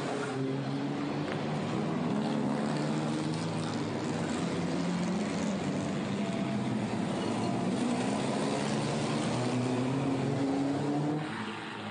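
Pre-war racing car engines running hard on a street circuit, the pitch repeatedly climbing as they accelerate and dropping back at gear changes. About 11 seconds in, the sound suddenly gets quieter.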